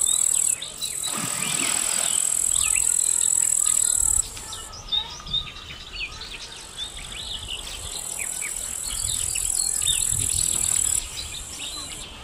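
Insects droning in a loud, steady, high-pitched buzz that cuts out abruptly and resumes several times, over many short chirps. About a second in, a brief splash of water.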